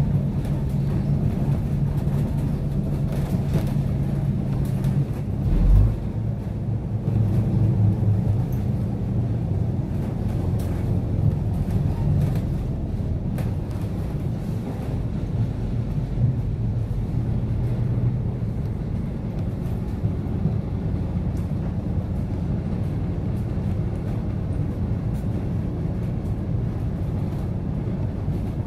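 Steady low drone of a vehicle's engine running as it moves slowly, heard from on board, with a short low thud about six seconds in.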